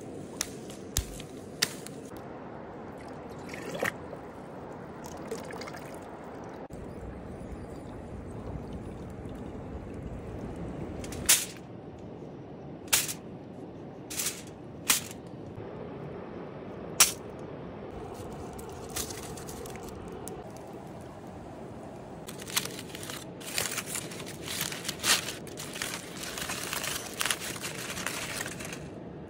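Handling sounds of food preparation over a steady background hiss: a few sharp knife clicks near the start, scattered taps through the middle, and near the end a stretch of crinkling aluminium foil as the foil-wrapped bread is opened.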